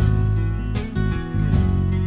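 Background music led by a strummed acoustic guitar, with chords changing on a steady beat.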